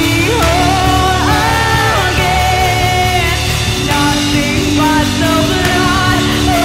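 Live worship band playing, with electric bass under a woman singing lead into a microphone in long held notes.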